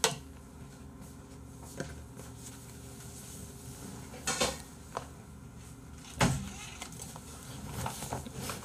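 A few light knocks and thumps of things being handled on a desk, the loudest about six seconds in, over a low steady hum.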